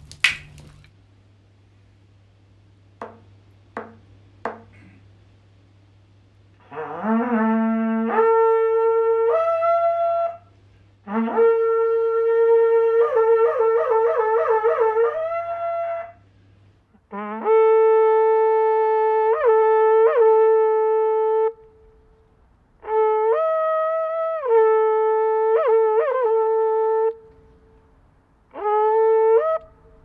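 A horagai (conch-shell trumpet) blown in five long blasts with short pauses between them. Each blast scoops up into a steady note and jumps to a higher note, and the second blast warbles rapidly between pitches. Three short clicks come a few seconds in, before the first blast.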